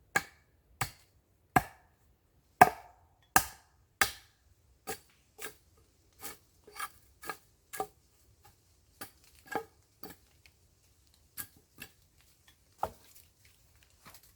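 A hand tool chopping wood: a run of sharp strikes that ring briefly. The first half-dozen are heavy and evenly spaced, about one every three-quarters of a second. Lighter, irregular strikes follow.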